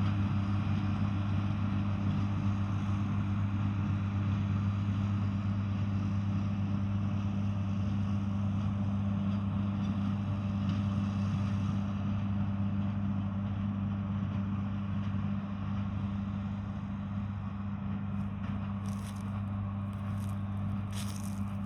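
John Deere 4040 tractor's six-cylinder diesel engine running steadily while baling hay, a constant low drone. A few sharp clicks come near the end.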